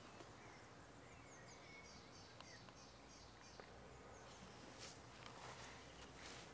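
Near silence with faint distant birdsong: a small bird repeating a short falling note several times a second, over a soft outdoor hush.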